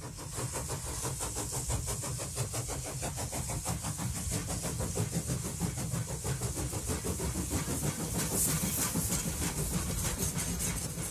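Steam locomotive chuffing in a fast, steady rhythm of about five exhaust beats a second, with steam hissing over it.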